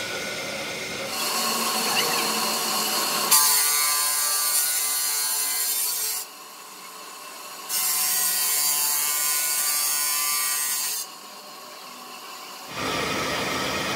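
Large segmented circular saw blade of a stone block cutter grinding through a granite block under a water spray, a steady hissing grind. The sound jumps abruptly between louder and quieter stretches several times.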